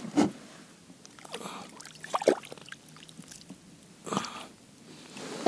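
A few short rustling and clicking noises, about a second apart, from a freshly caught small bream being handled by hand.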